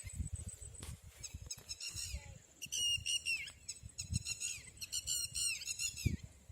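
Red-wattled lapwing calling: short, sharp, high notes that slide down in pitch, repeated quickly in several bursts. A low rumble sits underneath.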